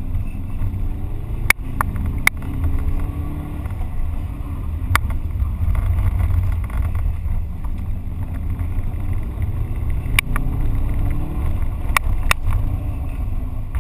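Subaru Impreza GT's turbocharged flat-four heard from inside the cabin, revving up and dropping back several times as the car is driven hard, over a heavy low rumble. A few sharp knocks cut through now and then.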